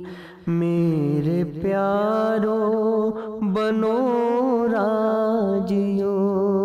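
Closing music of a Hindi devotional song: a wavering melodic line over a steady low drone. It starts after a brief dip in level about half a second in.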